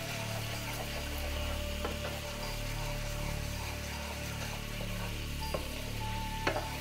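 Dark-browned onions in oil and water sizzling and bubbling in a pot as they are stirred, with a spoon knocking against the pot three times, loudest near the end. Background music plays underneath.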